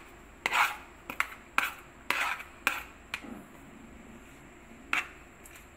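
A utensil scraping and tapping chopped white onion out of a plastic container into a bowl: about seven short scrapes and clicks, a few longer scrapes among sharper taps, the last one near the end.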